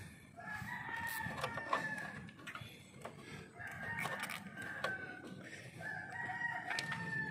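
Rooster crowing three times, each a long call of about a second and a half. A few sharp clicks sound under it as a cable tie is pulled tight.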